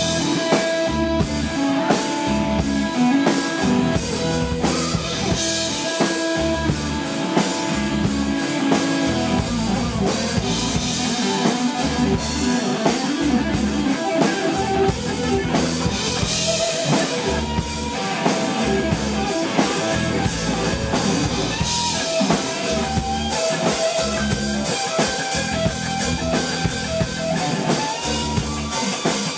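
Live rock band playing: electric guitar over a steady drum-kit beat.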